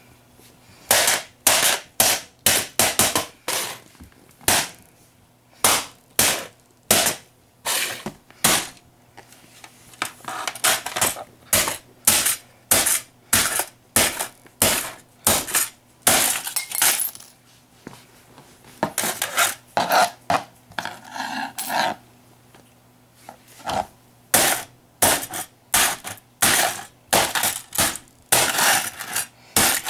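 Repeated sharp blows of a metal tool stabbing into a plastic VHS head-cleaner cassette, cracking and breaking its shell. The hits come about one or two a second, with a couple of short pauses.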